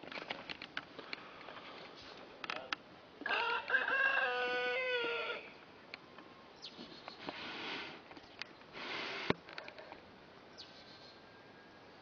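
A rooster crowing once: a single drawn-out call of about two seconds, with faint scattered clicks around it.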